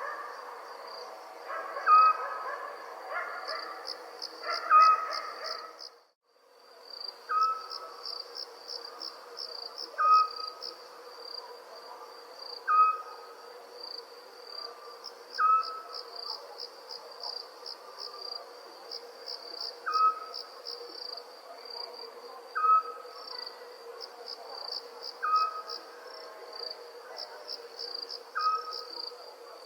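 Crickets chirping in a steady, high, pulsing chorus, with an owl giving short single hoots about every two and a half seconds. The sound drops out briefly about six seconds in, where the recording changes.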